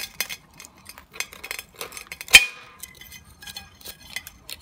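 A kitchen knife cutting down into a live sea urchin's shell, heard as a run of small sharp clicks and cracks, with one loud ringing clink of metal against the ceramic dish about two and a half seconds in.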